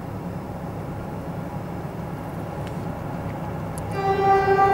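3TE10U diesel locomotive approaching with a freight train: a low steady engine rumble that slowly grows louder. About four seconds in it sounds its horn, one steady held note, the loudest thing here.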